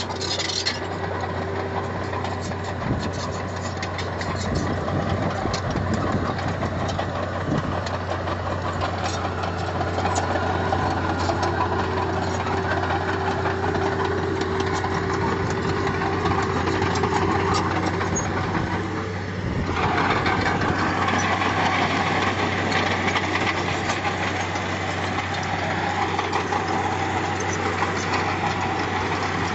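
Diesel engine of heavy earthmoving equipment running steadily. Its sound changes and gets slightly louder about twenty seconds in.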